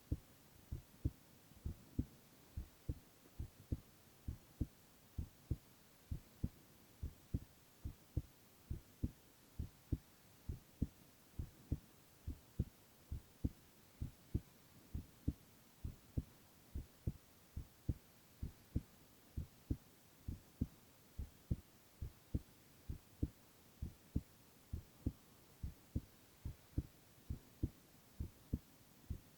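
A young man's heartbeat heard close up: a steady lub-dub of low, soft paired thumps repeating a little over once a second.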